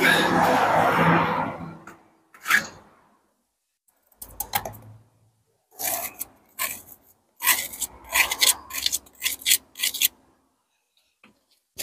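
Hand and trowel scraping and rubbing against brick, brick rubble and lime mortar: one long scrape, then a string of short scrapes and scuffs, quickest in the second half.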